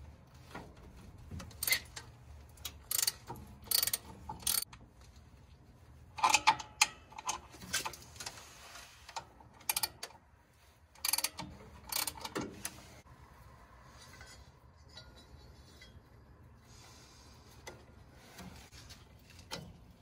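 Hand tools clicking and clanking on metal while a V-belt is fitted over the pulleys and a wrench works the alternator bracket bolt. The sharp metallic clicks come in irregular clusters, with a quieter stretch near the end.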